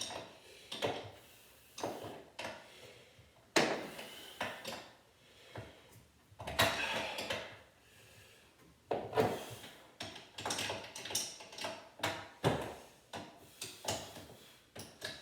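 Hand tools and metal hardware being handled: an irregular run of clanks and clicks, the sharpest about three and a half seconds in, with a longer scraping rattle about six and a half seconds in and again about nine seconds in.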